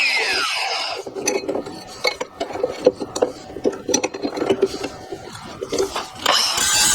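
A power tool winding down with a falling whine, then irregular light metallic clinks and knocks as metal frame pieces are handled and fitted. A loud steady noise starts again near the end.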